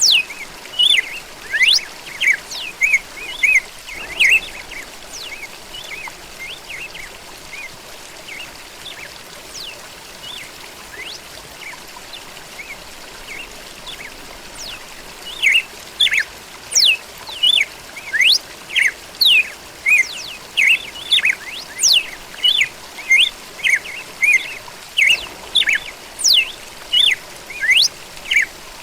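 Red-cowled cardinal (galo-da-campina) singing a fast series of short chirping notes. It falls quiet about four seconds in and resumes, almost without pause, about halfway through, over a faint steady hiss.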